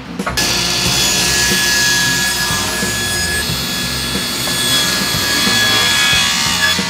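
Table saw ripping a block of pressure-treated timber lengthwise, the blade cutting steadily through the wood with a thin whine riding over the noise of the cut. The cut starts abruptly just after the beginning.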